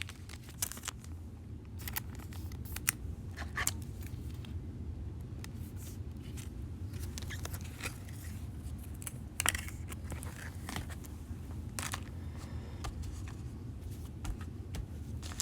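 Trading cards and pack wrappers being handled: scattered light clicks, flicks and rustles over a low steady room hum.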